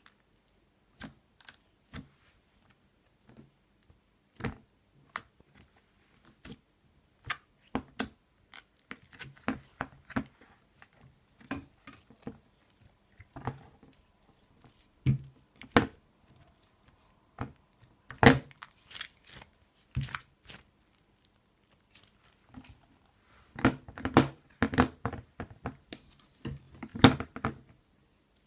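Crunchy, hardened crust of iceberg slime crackling and breaking as it is pressed, in sharp irregular snaps that come thicker and faster near the end.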